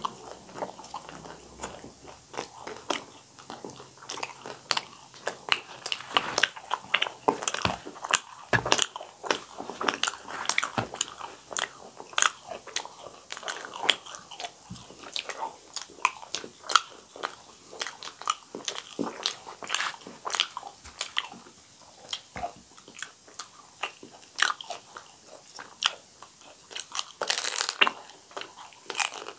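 Two people biting, tearing and chewing fried pooris: a dense run of crisp crackling clicks, with a louder burst near the end.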